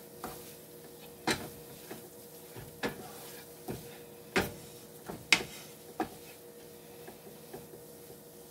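Wooden spoon stirring a thick flour-and-butter roux in a ceramic pan, knocking against the pan about eight times at uneven intervals over a faint steady hum.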